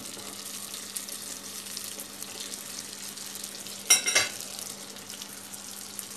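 Pişi dough rounds frying in hot oil in a deep pot, a steady crackling sizzle. About four seconds in, metal tongs clatter briefly as they are set down on a plate.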